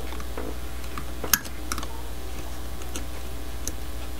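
Hobby knife blade shaving the melted-over plastic pin ends inside a plastic N scale locomotive shell: a scatter of small clicks and scratches, with one sharper click a little over a second in, over a steady low hum.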